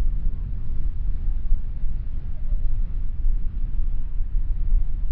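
Wind buffeting the microphone: a continuous, uneven low rumble.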